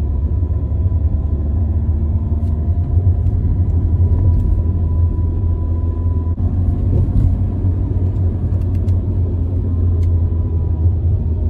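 A Hyundai i20 driving at low speed up a slope, heard from inside the cabin: a steady low rumble of engine and tyres with a faint thin whine above it.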